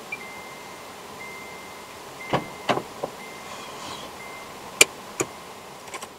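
A car door being opened: about half a dozen sharp clicks and knocks of its handle and latch, the sharpest about five seconds in, over a steady car hum.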